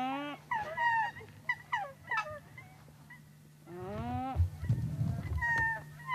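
Nene (Hawaiian geese) calling back and forth in a run of short honking calls, some rising and some falling in pitch, with a brief pause about halfway through before a longer falling call. The geese are calling in answer to a person's imitation of their call.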